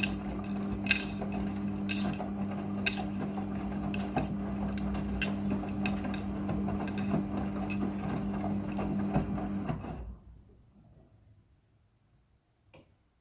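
Midea front-loading washing machine's drum motor running with a steady hum during the rinse, with a sharp click about once a second. The motor stops about ten seconds in, leaving quiet broken by a single faint click.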